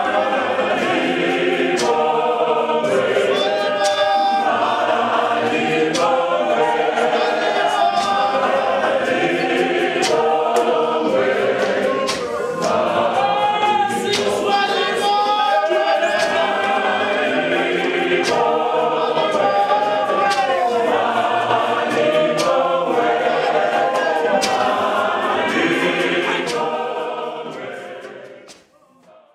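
A church congregation singing unaccompanied in full chorus, with sharp percussive beats running through the singing. The singing fades out near the end.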